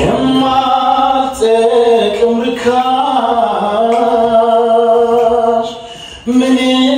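A man singing slow, long-held notes into a microphone, with a brief break about six seconds in.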